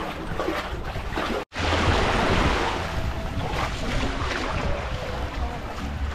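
Sea water washing and wind buffeting the microphone, a steady rushing noise with a low rumble. About a second and a half in, the sound drops out completely for an instant at an edit.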